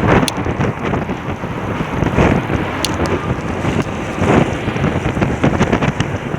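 Strong, gusty wind buffeting the microphone of a rider on a moving motorcycle, a loud rushing noise that rises and falls with the gusts.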